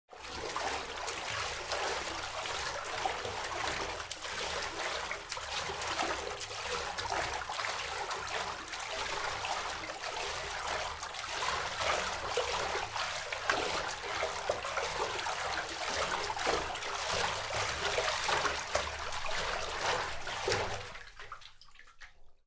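A swimmer moving through water: continuous splashing and sloshing from the strokes, fading out near the end.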